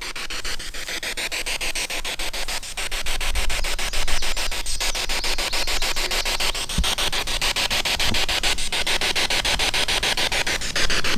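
Spirit box radio scanner sweeping through stations: a steady static hiss broken by a rapid, even ticking as it steps from channel to channel. A low rumble joins underneath about three seconds in.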